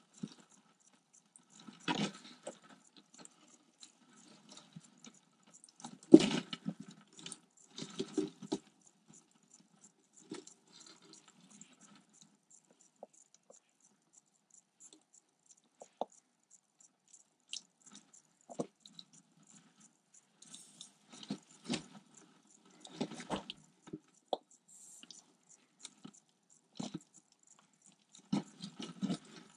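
Irregular rustling and scuffing of bark-chip substrate with scattered small clicks, as a garter snake and the live California toad it has seized shift and struggle in the terrarium. The busiest bursts come about 2 s in, from about 6 to 8 s, and again near the end.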